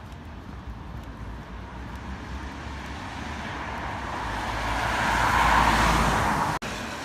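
Road traffic noise with one vehicle passing close, its tyre and engine noise swelling to a peak, then cut off suddenly near the end.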